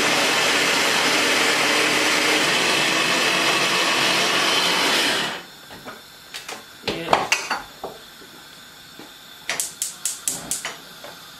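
Electric mini food chopper running steadily as it chops onion and garlic with a little water, cutting off about five seconds in. Then a few clicks and knocks as the chopper top is lifted off and things are handled on the counter.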